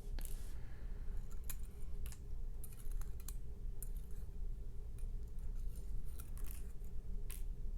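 Scattered light metallic clicks and taps of small lock parts (springs and pins from a disassembled Mul-T-Lock MT5+ cylinder) being handled, over a faint steady low hum.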